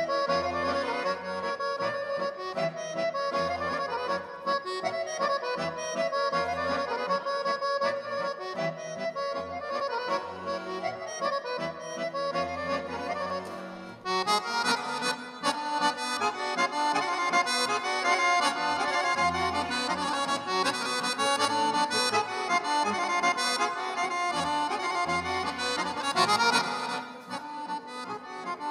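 Two accordions playing a duet, one of them a Guerrini piano accordion, with sustained reed chords and melody over a pulsing bass. About halfway through the music gets louder and brighter.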